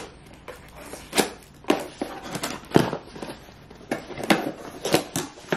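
Newly bought household items being rummaged through and handled, with about ten irregular sharp knocks and clatters and some rustling in between.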